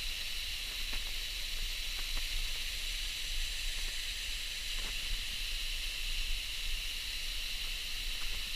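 Waterfall pouring steadily: an even rush of falling water, with a few faint ticks of splashes now and then.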